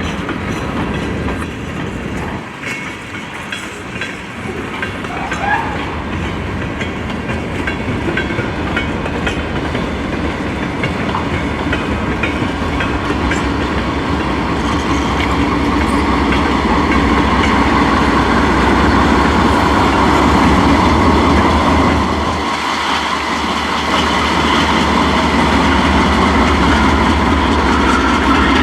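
Train rolling past, its steel wheels clicking over the rail joints, the sound growing steadily louder over the first half and then holding.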